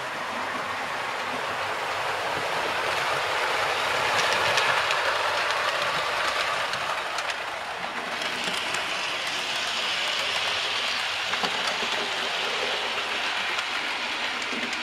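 Model trains running on the layout track: a steady whirr of wheels and motors with faint clicks, swelling as a train passes close about four to five seconds in, then turning higher-pitched from about eight seconds.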